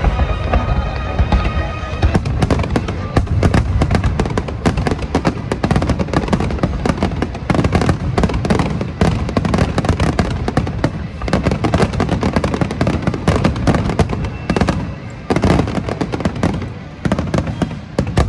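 Aerial fireworks bursting in rapid, dense succession, deep booms mixed with crackling reports, over music playing underneath.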